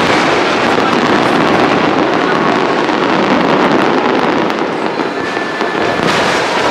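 Fireworks going off in quick succession, a dense, steady crackling with bangs running together.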